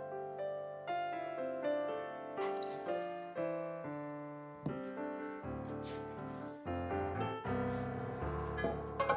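Background piano music, a slow melody of single struck notes and chords that ring and fade.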